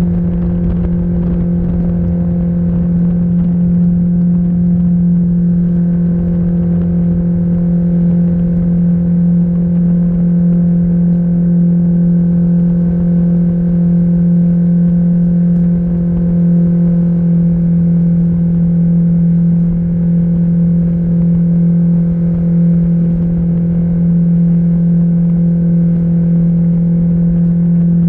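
Mercury 60/40 jet outboard running steadily at cruising speed with the boat under way at about 30 mph, a constant even engine drone. A low rushing noise of wind and water sits under it.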